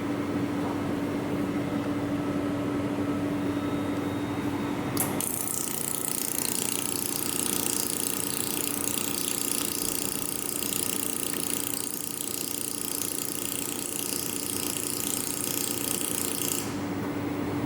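Mould laser welding machine firing repeatedly, a rapid mechanical clicking over the machine's steady hum. A hiss joins about five seconds in and stops shortly before the end.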